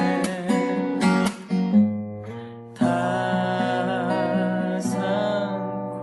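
Song accompanied by strummed acoustic guitar, with a held, wavering sung or melodic note in the second half; the music thins out briefly about two seconds in before the full chords return. It plausibly serves as the school's bell melody.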